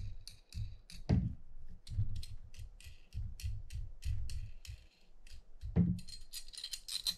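Small metal parts of a fishing reel's reel stand clicking and tapping against each other as it is taken apart by hand. Two duller knocks come about a second in and near six seconds, with a quick run of clicks near the end.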